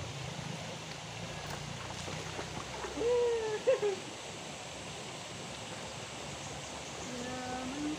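Shallow river water burbling steadily. About three seconds in comes a short, high call from a voice, rising and falling, the loudest sound here. A lower voice joins near the end.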